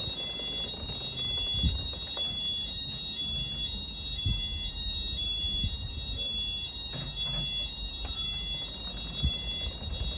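Nittan fire alarm sounding during a test: a high-pitched electronic alarm tone held steadily, with one tone pulsing on and off at an even rate. A few low thumps come through, the loudest about a second and a half in.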